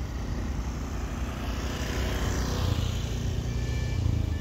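Motor engine rumble of a passing vehicle, swelling toward the middle and easing off. A faint steady high-pitched whine comes in near the end.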